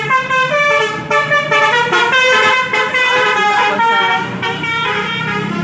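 Multi-tone telolet basuri horn on a tour bus playing a fast tune, its notes jumping in pitch several times a second and cutting off near the end, over the low running of the bus engine.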